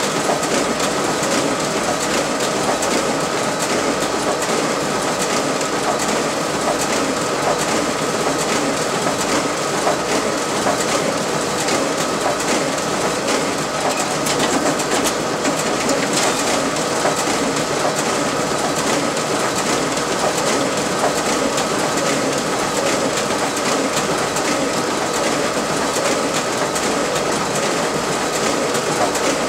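RISO 9050 high-speed inkjet printer running a 500-page duplex print job: a steady mechanical whir with a high hum and fast, continuous clicking of sheets feeding through.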